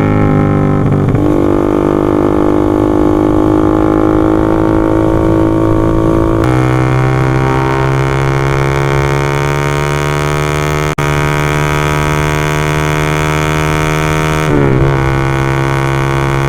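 Honda Sonic 150R's single-cylinder engine running at held revs through a Marpoll GRN-3 aftermarket racing silencer, a loud steady droning exhaust note. The pitch jumps abruptly about six seconds in, the sound cuts out for an instant near eleven seconds, and the note shifts again near the end.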